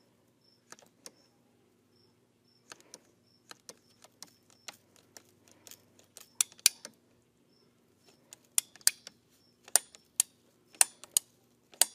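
Ratcheting PVC pipe cutter clicking as its handles are squeezed and its blade works through PVC pipe, in sharp single clicks that come louder and quicker in the second half, with the loudest snap near the end as the blade cuts through the pipe.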